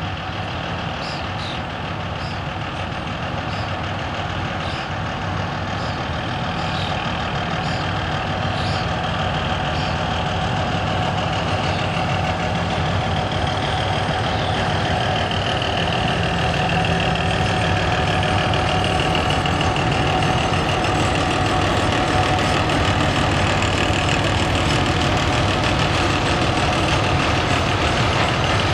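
Soviet M62 diesel locomotive's two-stroke V12 diesel engine running with a steady, deep beat, growing gradually louder.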